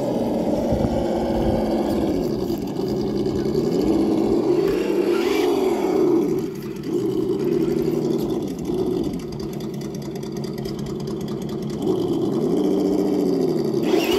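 Traxxas TRX-4 High Trail RC crawler's electric motor and geared drivetrain whining under load as it climbs over logs. The pitch rises and falls repeatedly with the throttle.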